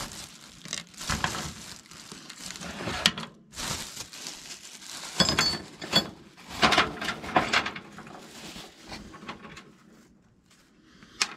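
A clear plastic parts bag crinkling as hands rummage through small loose door hardware, with a few sharp light clicks; it quietens near the end, then one sharp click.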